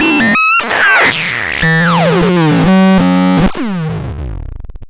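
Electronic synthesizer tones from the Furious Bug: a quick run of bleeps, a noisy burst about a second in, then a long downward pitch slide and steady low tones, ending in a falling sweep that fades away near the end.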